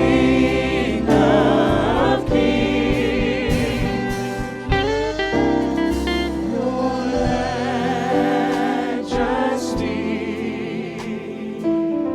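Gospel praise singing: several voices singing with vibrato over instrumental backing.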